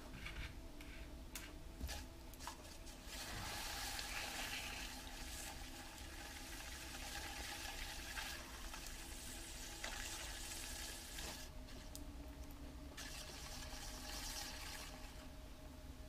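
Wet clay and water sloshing and swishing under wet hands on a spinning potter's wheel as the clay is opened and pulled up, with a few drips and splashes in the first seconds. A steady low hum from the wheel runs underneath.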